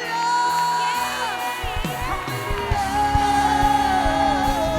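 Gospel worship song starting up: a singer holds long notes over sustained chords, and a bass and drum beat comes in about a second and a half in.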